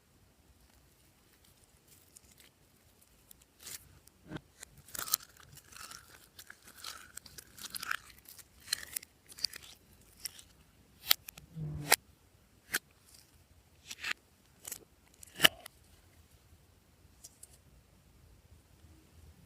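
Glossy slime being worked by hand, giving an irregular run of sticky clicks, pops and squelches that start about four seconds in and thin out near the end.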